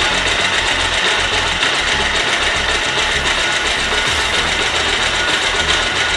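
Motorcycle's air-cooled single-cylinder engine idling steadily with a fast, even beat. Its timing chain tensioner has just been tightened, which the owner says has stopped the tik-tik knock.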